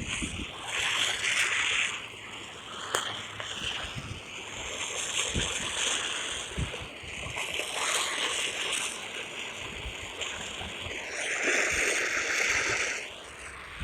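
Rushing hiss that swells and fades every second or two, with a few scattered clicks.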